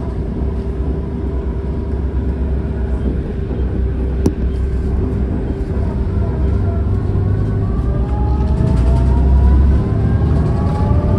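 Road vehicle heard from inside its cabin while driving: a steady low rumble with a constant hum, a single click about four seconds in, and from about eight seconds in a whine rising in pitch as the vehicle speeds up.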